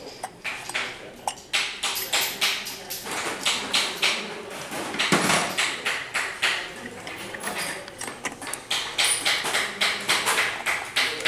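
Irregular metallic clicks, taps and clinks of an aluminium engine cylinder, its steel guide rods and the fitting tool being handled while the cylinder is worked down over the piston rings, with one heavier knock about five seconds in.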